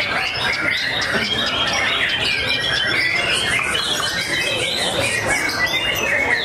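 White-rumped shamas singing together in their contest cages: a dense, unbroken chorus of many overlapping whistled and chattering phrases.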